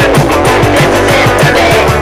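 Loud, fast rock music with guitar and a quick driving beat.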